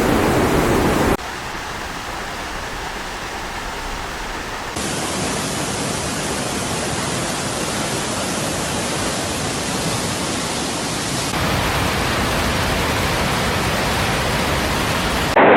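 Steady rushing noise of floodwater, in several clips joined by abrupt cuts that change its loudness and tone three times.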